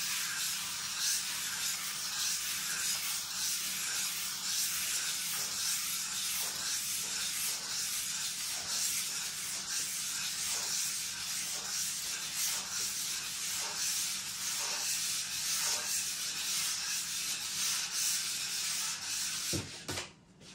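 Spatula spreading Bostik contact adhesive across a panel: a steady scraping rub of repeated back-and-forth strokes, which stops with a light knock about a second before the end.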